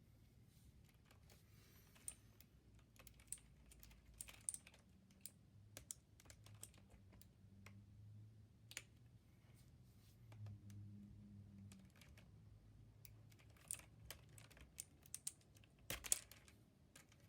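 Irregular clicks and clacks from a mechanical keyboard with clicky blue switches as it is handled and cleaned. There is a denser, louder run of clicks near the end.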